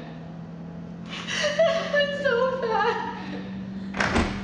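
A woman crying: a long drawn-out wail, about two seconds long, that falls in pitch, then a sharp gasping breath about four seconds in. A steady low drone sounds underneath.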